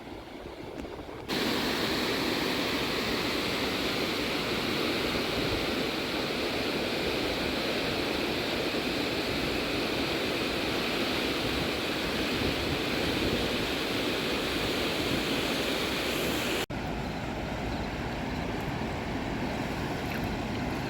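Steady rushing of a swollen river's water running high over its banks, an even roar without any tones. It jumps abruptly louder about a second in and drops to a somewhat quieter rush a few seconds before the end.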